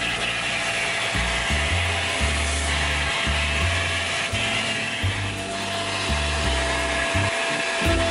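Vacuum cleaner running steadily, a constant whine with hiss, as its brush nozzle cleans leather trim, with background music and a stepping bass line underneath.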